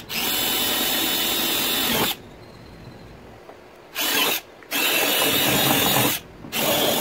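Cordless drill with a twist bit boring a hole through a plastic kayak hull, run in spurts: a steady run of about two seconds, a pause, a short blip about four seconds in, then two more runs near the end.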